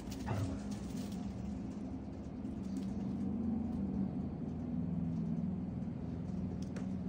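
Two dogs, a German shepherd and a small white dog, playing in sand: light scuffling and pattering of paws, with a brief high squeak near the start, over a steady low hum.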